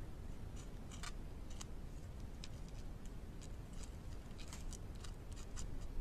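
A beaver gnawing into a tree trunk with its incisors: irregular short crunching clicks as its teeth bite and tear wood chips away, over a steady low rumble.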